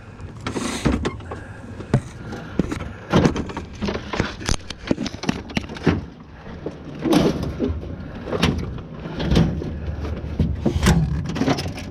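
Irregular knocks, clunks and rattles of objects being handled and moved, with a few sharper bangs.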